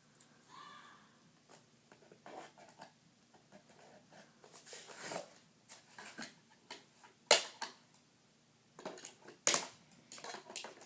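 Handling of a Nerf blaster's plastic parts and packaging: soft rustling with several sharp plastic clicks, the loudest about seven and nine and a half seconds in.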